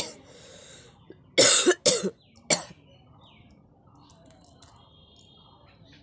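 A woman coughing on purpose: a short hack at the start trailing off into breath, then three coughs in quick succession about a second and a half in.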